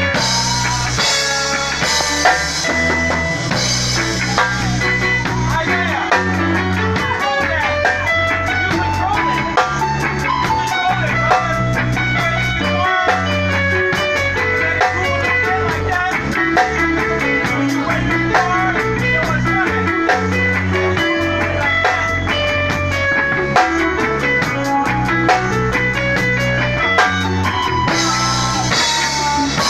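A live band plays rock music, with an electric guitar playing busy lead lines over a steady drum beat and low bass notes.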